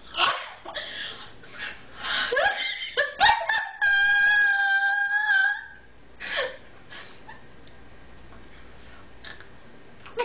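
Women laughing and giggling in short bursts, with one long high-pitched held vocal squeal about four seconds in that lasts nearly two seconds. The last few seconds are quieter.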